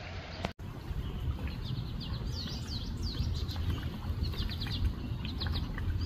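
Small songbirds chirping: a busy run of short, quick notes, most sweeping downward, over a low rumble.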